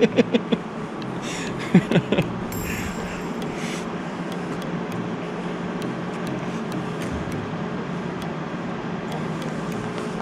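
Steady machine hum with a low tone held throughout, with a few short hissing or rustling noises in the first four seconds.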